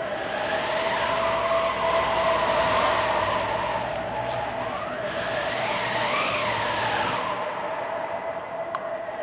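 Electronic film soundtrack: one held synthesizer tone under a rushing hiss, with higher tones that glide up and fall back down twice, once about a second in and again about five seconds in.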